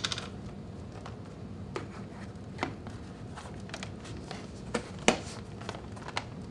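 Scattered light clicks and taps, about a dozen, the sharpest about five seconds in: cleaning tablets being handled and dropped into a coffee brewer's brew basket.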